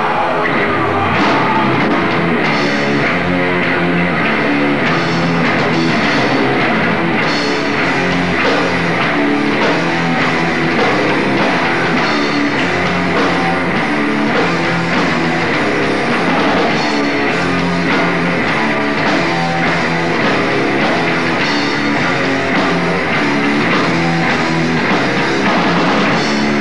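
Death metal band playing live: distorted electric guitars, bass and a drum kit, loud and dense with a driving rhythm.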